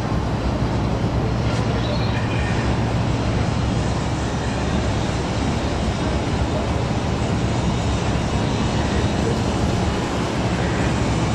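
Strong wind blowing across the camera microphone, a steady noise with no breaks.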